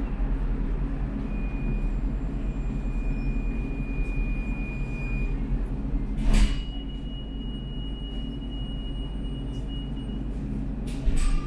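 Steady low hum of a Prague tram standing at a stop, with street traffic passing outside. A sharp click sounds about six seconds in and another near the end.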